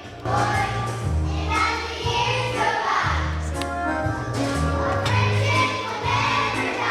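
A song with a group of voices singing over a bass line that moves through sustained notes. It gets louder a moment after the start.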